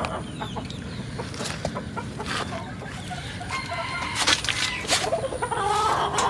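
Village chickens clucking, with a few sharp clicks in between.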